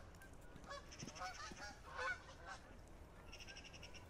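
Geese honking in a run of short calls, with two bursts of rapid ticking from the fishing reel's drag as a hooked catfish pulls line against a tight drag.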